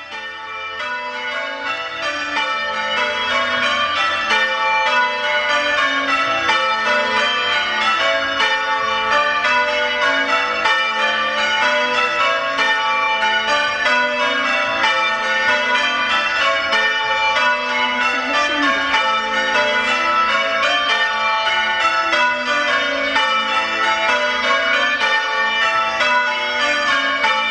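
Change ringing on a ring of six church bells cast by Gillett and Johnston, tenor in A, struck in quick unbroken succession. The sound grows louder over the first few seconds.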